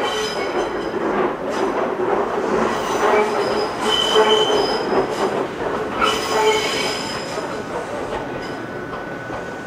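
Ichibata Electric Railway electric train rolling slowly over the station tracks, its wheels squealing in short high-pitched spells over a rumble and clatter, the loudest squeal about four seconds in and another about six seconds in.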